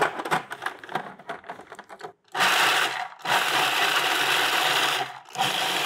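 Food processor grinding pecans. Light clicks and knocks as the machine is closed, then the motor runs for about three seconds, stops briefly, and starts again.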